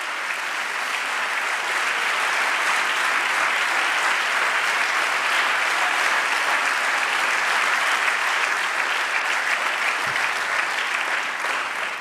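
Congregation applauding: steady, sustained clapping that swells slightly over the first couple of seconds and dies away near the end.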